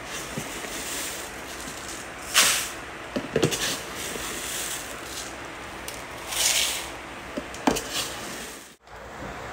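Dry rice being scooped from a plastic storage bin with a plastic measuring cup: two rushes of grains pouring, about two and a half and six and a half seconds in, each followed by a few light plastic knocks.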